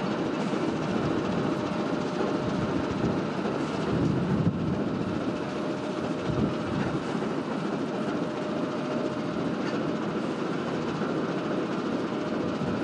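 TEM2 diesel-electric shunting locomotive running steadily as it rolls slowly past: a continuous, even engine rumble with a faint steady tone on top.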